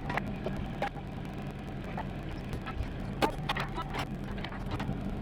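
Small diesel engine of a John Deere 17D mini excavator running steadily, with a few sharp knocks and clanks over it.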